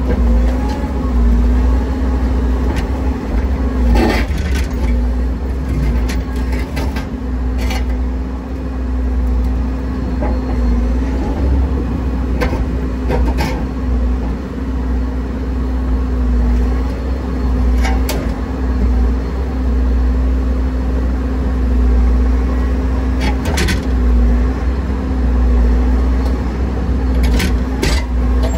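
Earth-moving machine's engine running steadily, a low rumble with a constant hum. Sharp clanks and knocks come now and then, about a dozen in all, some in quick pairs.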